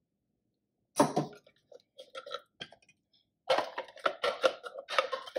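A spatula scraping and knocking inside a plastic food-processor bowl as thick blended salsa slides out of it into a skillet. The sounds start about a second in and come irregularly.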